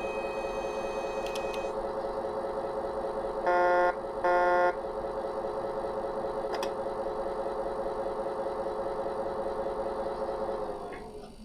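Simulated diesel engine idling steadily from an RC wheel loader's electronic sound module, played through its small speaker. About a third of the way in come two loud half-second electronic beeps, and near the end the engine sound dies away as it shuts down.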